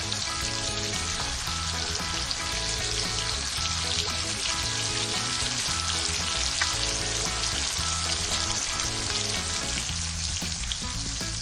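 Background music over a steady high hiss.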